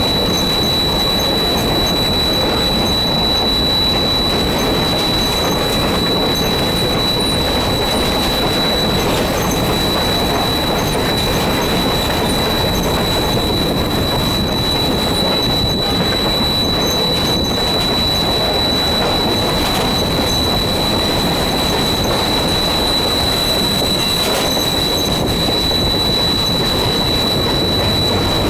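Steady running noise of a train heard from inside the locomotive cab, an even rumble and rattle with a thin, steady high-pitched whine over it.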